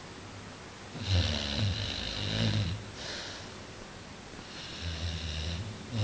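Pit bull snoring in its sleep: a long rasping snore starting about a second in, a short one after it, and another near the end.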